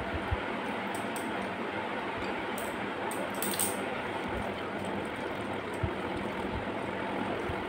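Fingers mixing rice and curry on a steel plate, with a few light clinks and scrapes against the metal over a steady background hiss.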